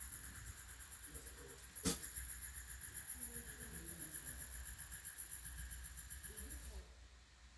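Steady high-pitched electrical whine over a low hum, with faint voices in the background. There is one sharp click about two seconds in, and the whine cuts off near the end.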